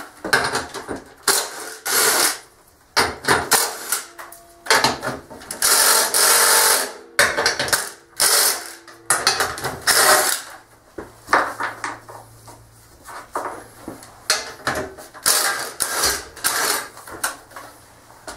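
Handheld power driver running in a string of short bursts, one of them longer, backing out the bolts that hold the front skid plate on the underside of a Honda TRX70 quad, with clinks of metal as the bolts and plate come loose.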